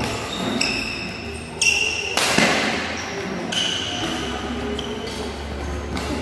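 Sports shoes squeaking in short high chirps on a hard indoor court floor as players lunge and shuffle through a badminton footwork drill. Footfalls and sharp impacts come in between, the loudest about two seconds in.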